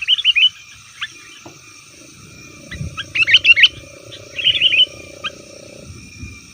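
Sooty-headed bulbuls giving noisy, chattering call notes in three quick bursts: at the start, about three seconds in, and again a second later. A low rumble with a faint steady hum runs underneath in the middle.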